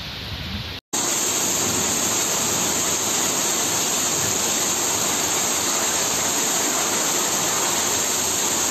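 Heavy rain in a thunderstorm pouring down, a steady dense hiss. About a second in the sound cuts to a second, louder and harsher downpour.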